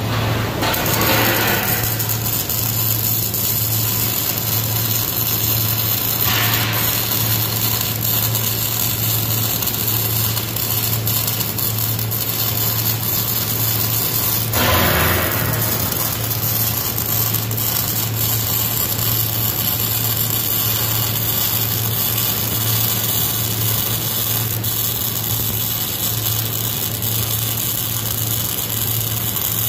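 Wire-feed (MIG) welding arc on steel: a steady crackling sizzle over a low hum, with a few short louder surges.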